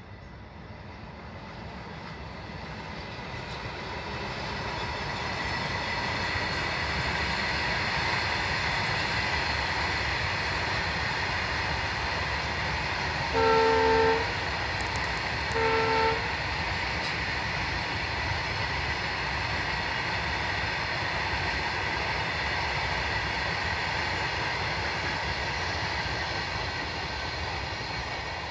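Freight train of hopper wagons rolling past, its steady rail noise building over the first few seconds and then holding. About halfway through, the locomotive's horn sounds two short chord blasts, the second shorter than the first. The rolling noise eases off near the end.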